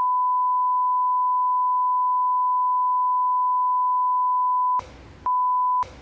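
Censor bleep: a steady, loud, pure beep tone held for nearly five seconds, then a short break of faint room sound and a second, brief bleep near the end.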